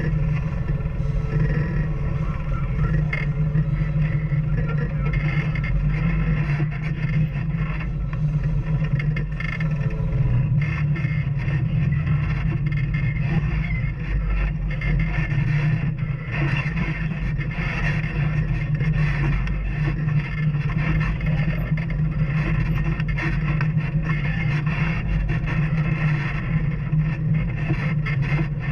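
Off-road vehicle engine running steadily while riding a trail, with frequent knocks and rattles from the vehicle over rough ground.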